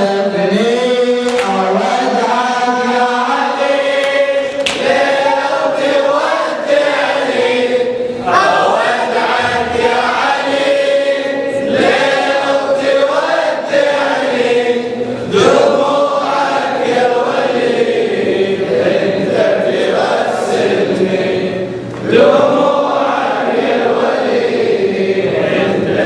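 Male voices chanting a Shia latmiyya mourning lament together, a many-voiced refrain sung steadily in unison.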